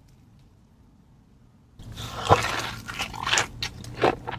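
Near silence for about two seconds, then close-up crunching and chewing of food, with irregular crisp clicks.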